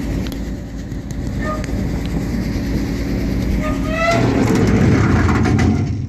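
1954 Chevrolet tow truck running with its power take-off engaged, driving the wrecker's winch gear: a steady low mechanical drone that grows louder and heavier about four seconds in as the PTO drive takes up. The sound shows the PTO works.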